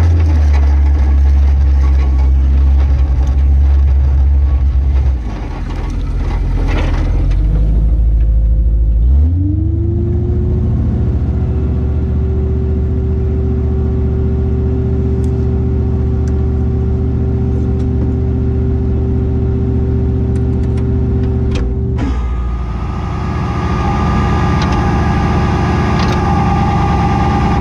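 A tow truck's engine running close by. About nine seconds in it revs up quickly and then holds a steady, higher speed, with a sharp knock about three-quarters of the way through.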